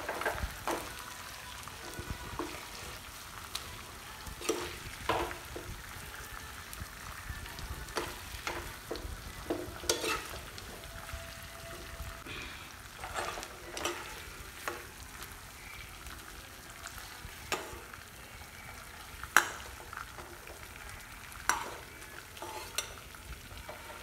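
Marinated chicken pieces shallow-frying in oil with a steady sizzle, while a utensil knocks and scrapes against the pan every few seconds as the fried pieces are lifted out.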